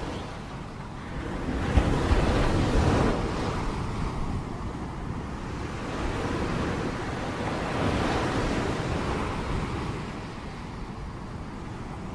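Ocean surf breaking and washing up a beach: a rushing noise that swells and falls back every few seconds, loudest about two seconds in.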